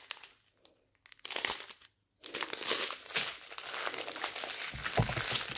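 Plastic packets of diamond painting drills crinkling as they are handled, in short bursts at first and then steadily after about two seconds, with a low thump near the end.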